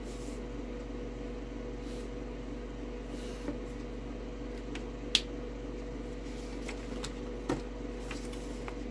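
Steady low electrical hum with a few faint clicks and taps of small items being handled, the sharpest about five seconds in and another about seven and a half seconds in.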